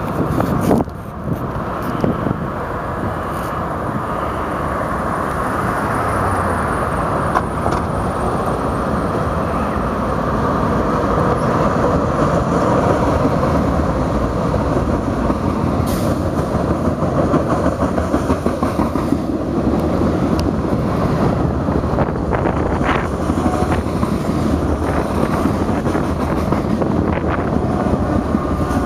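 Freight train passing behind two GE C40-8 diesel locomotives, with engine noise and steel wheels running on the rails in a continuous noise with scattered clicks. It grows louder over the first ten seconds or so, then holds steady.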